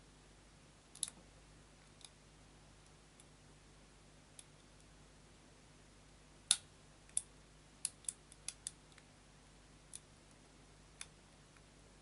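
Padlock being single-pin picked: faint, sharp metallic clicks of the pick and pins inside the lock as pins are set and the next binding pin is sought. A few scattered clicks, then a quick run of about six between six and nine seconds in, then two more.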